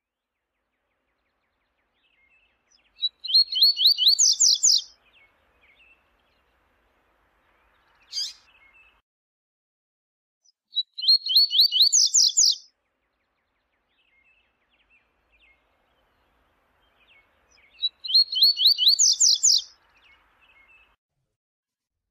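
Double-collared seedeater (coleiro) singing: three high songs, each a fast run of notes climbing in pitch and lasting about two seconds, spaced about seven seconds apart, with one short single note between the first two.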